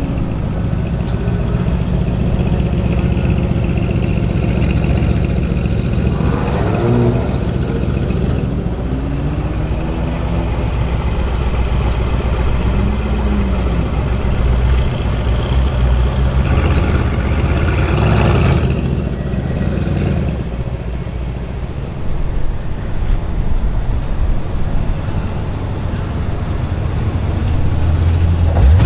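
Mercedes-AMG C63 S Coupé's twin-turbo V8 idling through its quad exhaust, with several short throttle blips that briefly raise and drop the revs; the largest comes a little past halfway.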